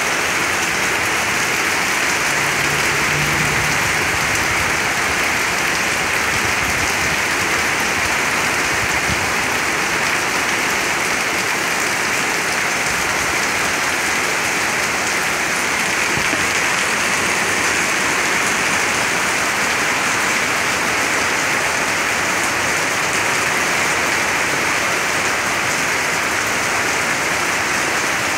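Heavy downpour falling steadily, an even, dense hiss of rain.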